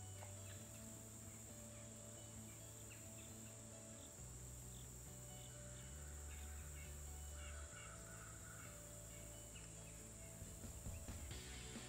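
Faint, steady high-pitched drone of insects, under quiet background music of low held notes that change every couple of seconds.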